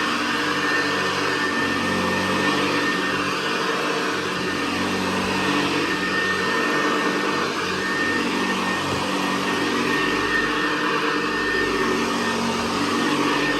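Hoover Convertible Model 68 upright vacuum, a direct-air machine, running steadily as it cleans carpet, with a steady high whine over its motor hum.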